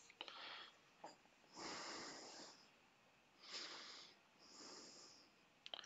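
Near silence with a few faint, short breaths close to the microphone, about a second apart.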